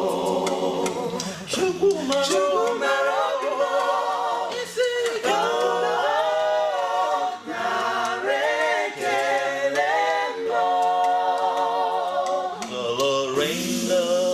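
A cappella vocal group singing a gospel song in close harmony, several voices sustaining and moving between chords without instruments.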